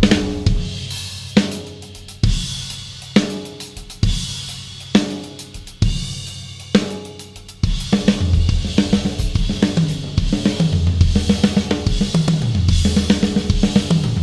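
A Yamaha Stage Custom birch-shell drum kit is played. For the first half there are single accented hits about once a second, each left to ring out. About eight seconds in it breaks into a full groove of bass drum, snare and cymbals, with tom fills falling in pitch.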